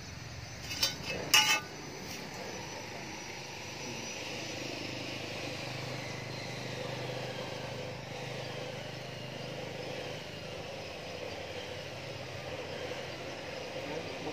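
Two sharp knocks about a second in. Then a motor vehicle's engine hum swells and fades as it passes, with a slowly falling pitch.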